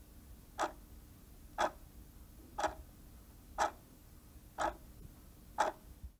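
Countdown timer's ticking sound effect: a single sharp tick once a second, six times.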